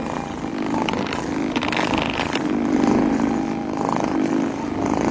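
Handheld percussion massage gun running with a steady motor hum while pressed against a cat.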